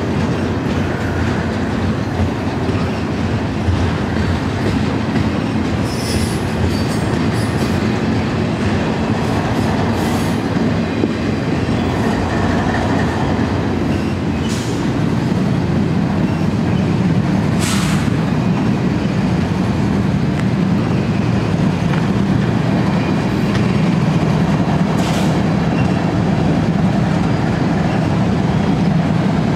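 Double-stack intermodal container well cars rolling past, with a steady rumble and rattle of wheels on rail. A few brief high squeals from the wheels cut through it, most clearly a little over halfway.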